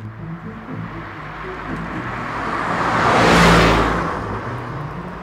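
Car pass-by sound effect: a rushing vehicle noise that swells to a peak about three and a half seconds in, then fades away. Soft background music plays under it.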